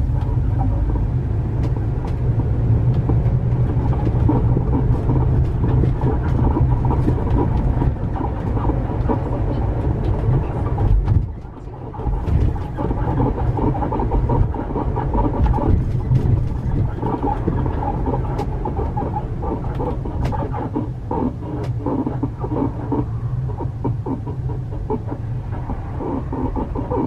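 Camper van under way, its road and engine rumble overlaid with loud, irregular squealing and creaking from under the floor, like an animal crying. The noise comes from the rear add-on helper leaf spring, which the owners identify as the source and which was later replaced with a countermeasure part.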